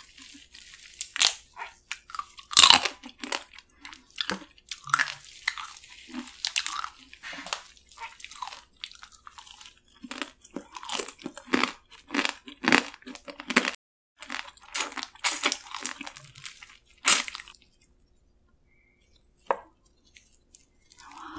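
Close-miked crunching and chewing as spicy marinated raw crab is bitten and eaten from the shell, with many sharp crunches in quick runs. The eating sounds stop about 18 seconds in.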